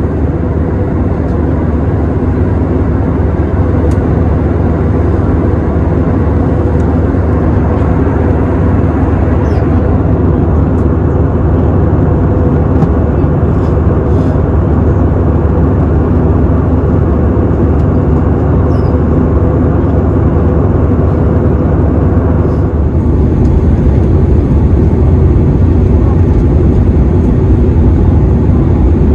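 Steady jet airliner cabin noise during the descent: engine and airflow roar with a deep hum and a faint steady tone. It grows a little louder about two-thirds of the way through.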